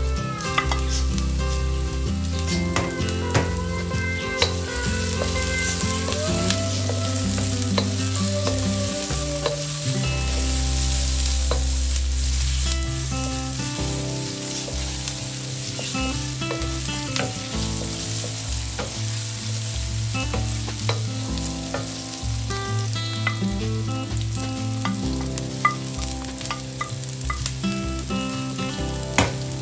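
Red onions and green bell peppers sizzling as they are stir-fried in hot oil in a stainless steel wok. A wooden spatula scrapes and clicks against the metal as it tosses them.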